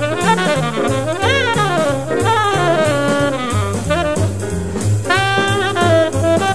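Jazz recording: a tenor saxophone plays quick phrases of many notes, some sliding up and down in pitch, over a walking bass line and drum kit.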